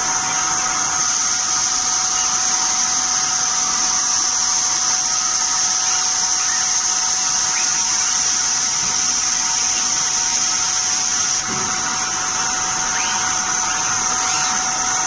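PCB router machinery running on a production line: a steady high hiss with a constant whine, unchanging in level.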